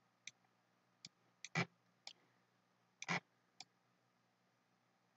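Computer mouse buttons clicking: about eight short, faint clicks, the two loudest about one and a half and three seconds in.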